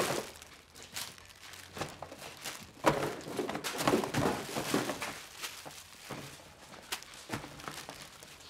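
Plastic packaging crinkling and rustling as goods are handled, with scattered light knocks and footsteps. The crinkling is heaviest about three to five seconds in.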